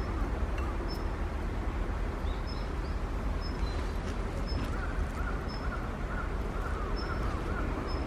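Birds calling: short high chirps repeating about once a second, joined about five seconds in by a quick series of arching calls, over a steady low rumble.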